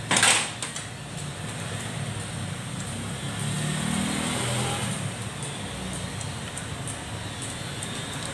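A short, sharp clatter right at the start, then steady traffic noise, with a low hum swelling and fading around the middle like a passing vehicle.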